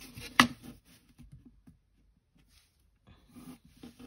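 A plastic set square and ruler being handled and repositioned on paper, with one sharp knock about half a second in as a tool is put down, then soft sliding and rustling against the paper.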